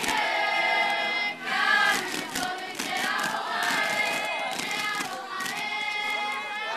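A group of girls singing a Māori poi song in unison, holding long notes, with quick taps of poi balls being swung and struck running through it.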